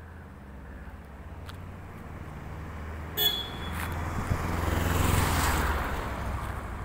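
A road vehicle passes close by, its noise swelling and then fading, with a short horn toot about three seconds in, over a steady low traffic hum.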